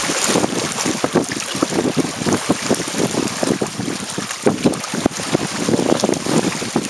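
Water rushing and splashing along the outrigger float of a Hobie Tandem Island sailing trimaran moving through choppy water, with wind buffeting the microphone in uneven gusts.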